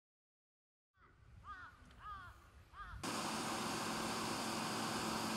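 Faint outdoor ambience with a few short rising-and-falling chirps like bird calls, starting about a second in. About three seconds in, a steady, louder hiss with a constant low hum cuts in abruptly.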